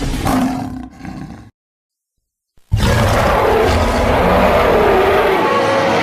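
A sound effect dies away about a second and a half in, and after a short gap of silence a loud, gorilla-like creature roar starts and carries on, wavering in pitch.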